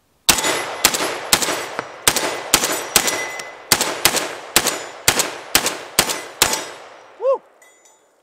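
Rock Island Armory VR80 semi-automatic, gas-piston 12-gauge shotgun fired in rapid succession from a 19-round box magazine: about thirteen shots at roughly two a second, each a sharp report with a short echo. The firing stops about a second and a half before the end, and a brief pitched ring sounds about seven seconds in.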